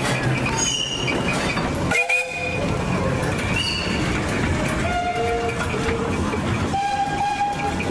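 Train horns sounding short blasts over the steady noise of a passing train, including a two-tone horn going high then low about five seconds in and another blast near the end.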